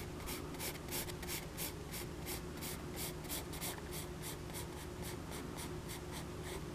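Pencil scratching across paper in quick, short sketching strokes, about four a second.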